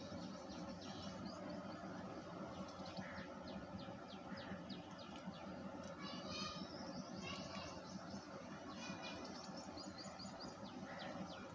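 A group of rabbits munching chopped vegetables and fruit: a faint run of quick, crisp nibbling clicks. Birds chirp in the background, in short runs about six seconds in and again about nine seconds in.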